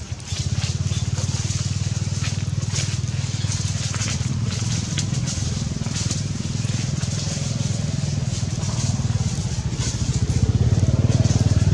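Steady low rumble that sets in just after the start and grows louder near the end, with scattered crackling of dry leaves as the baby monkey squirms on them.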